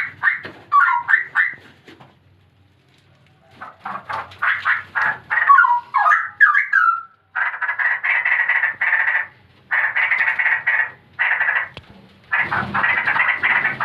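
Straw-headed bulbul nestlings calling: first quick chattering notes that slide in pitch, then, from about seven seconds in, long harsh rasping calls repeated in bursts of a second or so.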